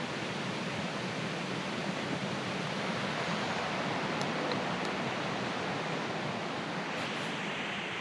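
Steady rushing of a creek running high after heavy rain.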